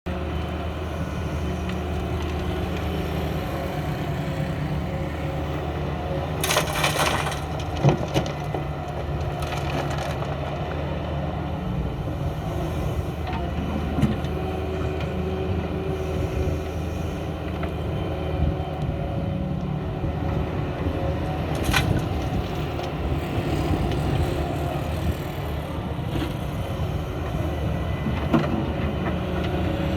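Heavy excavator's diesel engine running steadily under load, with now and then a sharp knock or crunch of material being broken or dropped while loading, the loudest a few times near the middle and end.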